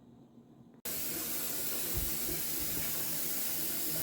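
A steady rushing hiss cuts in abruptly about a second in and holds evenly.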